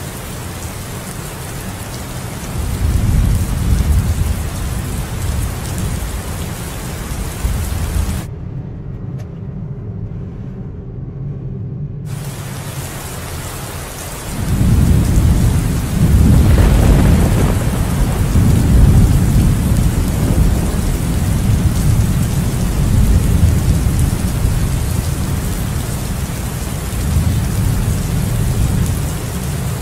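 Steady rain with rolling thunder: a low rumble of thunder swells a few seconds in, and about halfway a longer, louder roll of thunder builds and slowly fades over the rain. For about four seconds a third of the way in the rain's hiss drops away, leaving only a low rumble.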